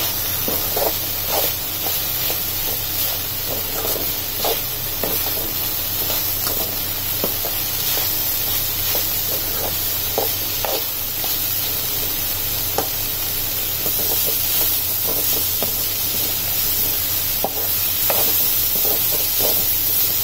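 Spinach and onion stir-frying in oil in a pan, sizzling steadily while a steel spoon stirs and scrapes the pan in quick, irregular strokes.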